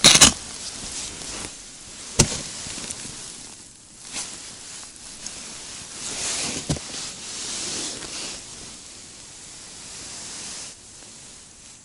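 Rubber boots knocking and crunching on thin, wet river ice, with clothing rustle. There is a sharp knock at the start, a short click about two seconds in and a thud near seven seconds, with rustling in between.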